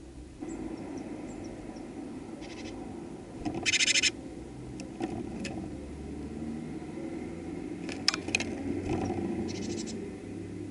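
Great tit at a seed feeder: short scratchy bursts, the loudest about three and a half to four seconds in, and a cluster of sharp clicks and taps around eight seconds in as it works at the loose seed, over a steady low hum.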